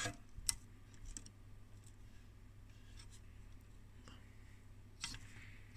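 Faint, sparse clicks and scratches of fingers handling a circuit board, over a low steady background hum.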